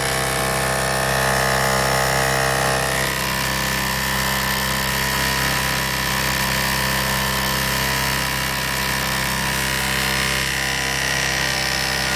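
Small electric motors on a home-built pump-and-fan rig running steadily: a constant electrical hum with a motor whir over it, the fan turning while the meter reads 0 volts.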